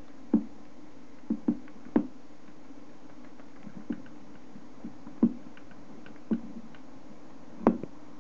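Djungarian hamster nibbling a millet spray in a ceramic food bowl: about eight sharp, irregular clicks and knocks as seeds crack or the bowl is bumped, the loudest near the end, over a steady low hum.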